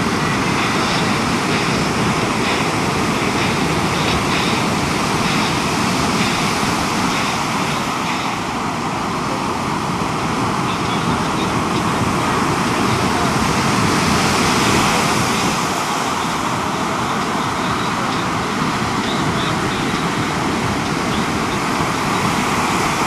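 Ocean surf, a steady, loud wash of noise.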